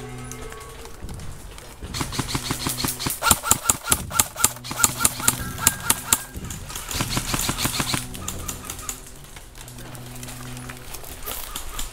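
Airsoft rifle firing a rapid string of shots, about five a second for several seconds, then a shorter string a little later, over background music.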